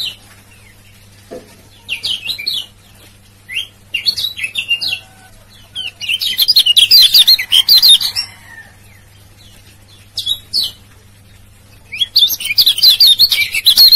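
Kecial kuning (Lombok white-eye) chirping its rapid, high-pitched 'ciak ciak' song in short bursts. The longest and loudest runs come about six to eight seconds in and again near the end.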